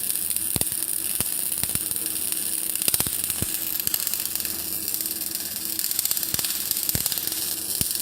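MIG welding arc crackling steadily while a bead is run on a mild steel T-joint, with a few sharper pops scattered through.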